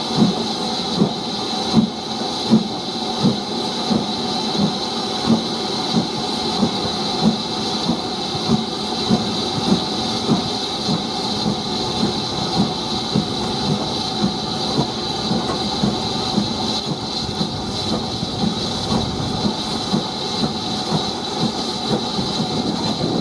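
BR Standard Class 4 2-6-4T tank engine's steam exhaust beating steadily as it pulls its train away, about one and a half chuffs a second, quickening slightly as it gathers speed. Under it run a steady hiss and the rumble of the carriage wheels, heard from the leading coach.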